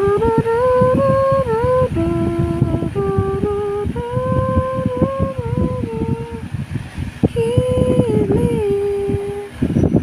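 A person humming a slow tune in long held notes that step up and down, over a steady clutter of low knocks and rustling close to the microphone.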